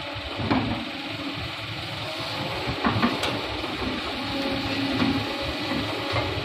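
Excavator diesel engine running steadily under hydraulic load while loading soil into a dump truck, with a couple of sharp knocks from the bucket and dumped earth.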